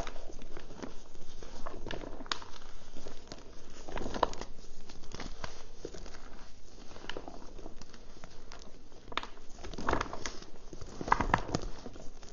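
Reformed gym chalk crunched and crumbled between the fingers, with crumbs and powder pattering back down onto the chalk pile. Irregular crisp crackles throughout, with louder crunches about four seconds in and again around ten to eleven seconds in.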